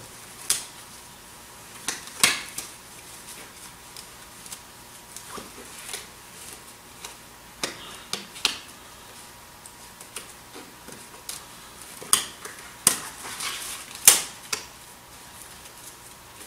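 Scattered light clicks and taps of small objects being handled on a desk, at irregular intervals, over a faint steady electrical hum.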